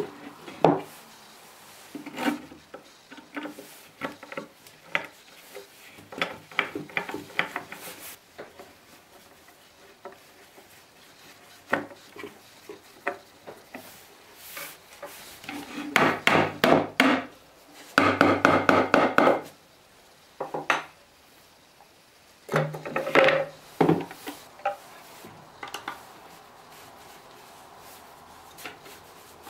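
A hand screwdriver backing screws out of an ash-veneer chipboard cabinet as it is taken apart. Scattered knocks and clicks of tool and wood, with a longer stretch of scraping a little past halfway and a shorter one a few seconds later.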